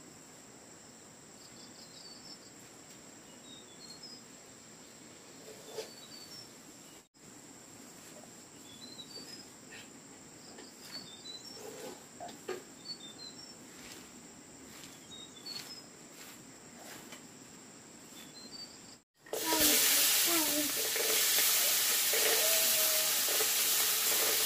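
A steady, quiet insect trill with scattered small bird chirps. About nineteen seconds in, loud sizzling of food frying in hot oil in a wok over a wood fire takes over.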